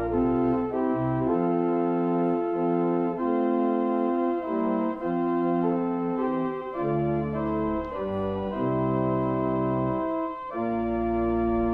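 Organ playing held chords over a shifting bass line, the chords changing about once a second, with a brief break near the end.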